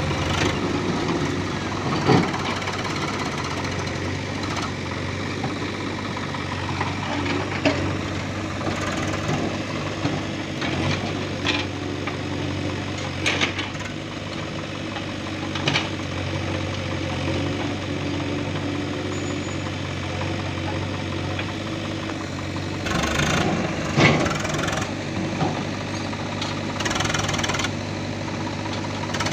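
Swaraj 744 FE tractor's three-cylinder diesel engine running steadily at low revs, with a few sharp clanks now and then.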